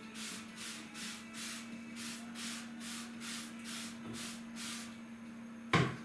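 Rhythmic hand scrubbing of dishes at a kitchen sink, about two and a half strokes a second, stopping about five seconds in. A sharp knock near the end is the loudest sound, over a steady low hum.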